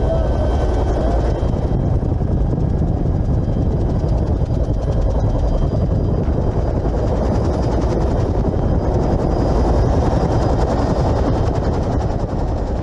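Helicopter rotor and turbine noise heard from inside the cabin with the side door open: a loud, steady rumble with rushing air. It dips slightly just at the end.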